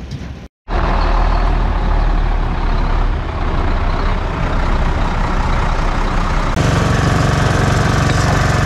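Heavy diesel construction machinery running steadily and loudly. About two-thirds of the way through, the sound changes to a deeper, steadier engine drone.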